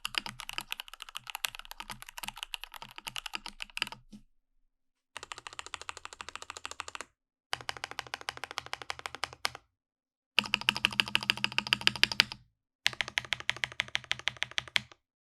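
Typing on a Rama Works M65-B mechanical keyboard with stock, factory-lubed Gateron Oil King linear switches on a PVD-coated brass plate with an internal silicone dampener: rapid runs of key clacks. The typing comes in five stretches, each cut off abruptly by a short silence, and the fourth is the loudest.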